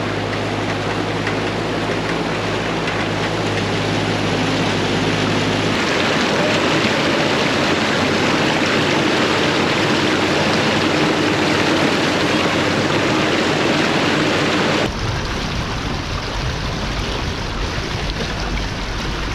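A ute driving through deep swamp water, its engine running under a loud, steady rush and splash of water against the vehicle. The sound changes abruptly about six seconds in and again near fifteen seconds.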